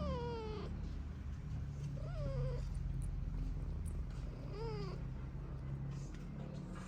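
A cat meowing three times, each meow sliding down in pitch, over a steady low hum.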